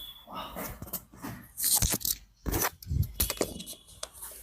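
Several short crunching pops of spinal joints cracking under a chiropractic manipulation thrust, amid rustling, the loudest coming in the second half.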